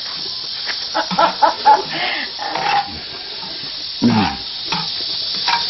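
Shredded radish sizzling as it is stir-fried in castor oil in a large black cauldron, with the spatula stirring and scraping; the steady hiss of the frying runs throughout. Brief low voices come in now and then.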